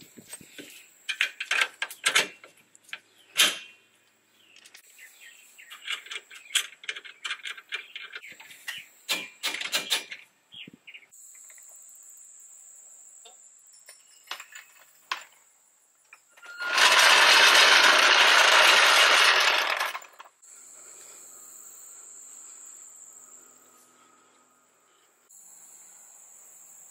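Metal tools and sockets clinking and clattering on a concrete floor as they are picked up and handled. Then crickets chirping steadily, broken about two-thirds of the way through by a loud rushing noise lasting about three seconds.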